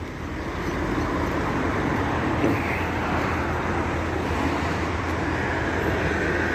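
Steady running noise of an idling diesel truck engine: a constant low hum under broad noise, swelling a little over the first second and then holding even.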